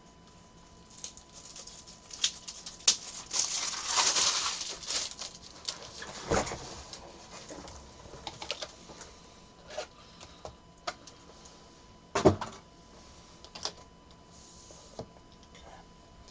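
Irregular clicks and rustling of objects being handled on a table, busiest a few seconds in, with two heavier knocks about six and twelve seconds in, over a faint steady hum.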